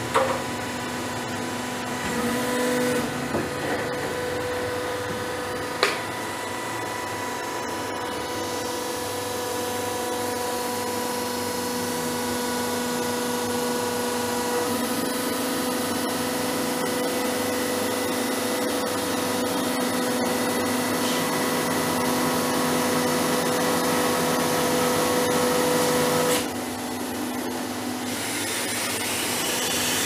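Hydraulic baling press's electric motor and pump running with a steady whine, its tone changing a few times while the press is worked and partly dropping away near the end. A sharp knock about six seconds in.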